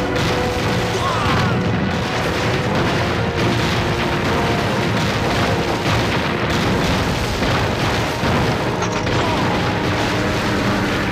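A steady barrage of explosions, one blast after another, under background music.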